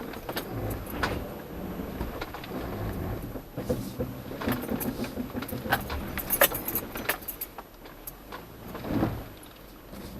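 Jeep Cherokee Trailhawk crawling along a rough off-road trail, heard from inside the cab: a low engine and tyre rumble with many clicks and rattles as the vehicle jolts over the terrain. The rattling is thickest about two-thirds of the way through, and there is a low thump near the end.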